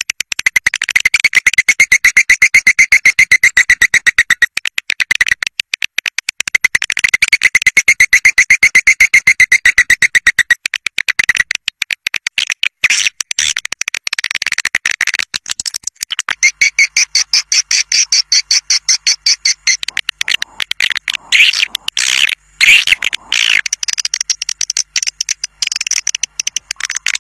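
Swiftlet caller recording: swiftlets twittering in fast, rattling runs of chirps many times a second, each run lasting a few seconds. Higher, thinner chirping takes over about two-thirds of the way through. This is the lure call played from swiftlet houses to draw flocks in to roost and nest.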